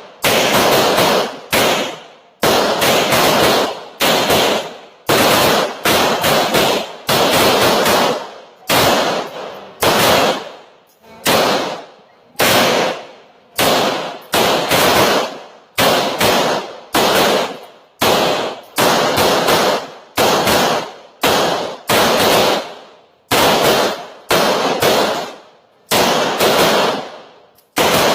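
9mm pistol shots, a long string of single shots and quick pairs about a second apart, each with a short echoing decay.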